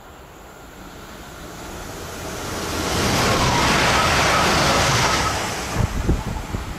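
Stadler FLIRT electric multiple unit passing close by at speed: a rush of wheels and air that builds over about three seconds, peaks, then fades. Wind buffets the microphone with low thumps near the end.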